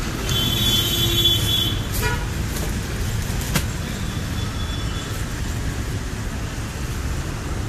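Road traffic running with a steady rumble. A vehicle horn toots for about a second near the start, then a shorter honk follows about two seconds in. A single sharp click comes a little later.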